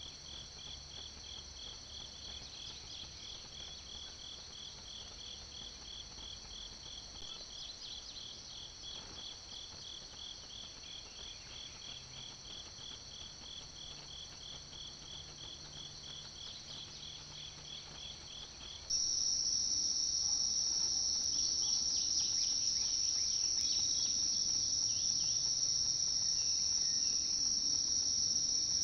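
Chorus of crickets and other night insects: steady high trilling with a pulsing chirp about two to three times a second. About two-thirds of the way through, it switches abruptly to a louder, higher, steady trill.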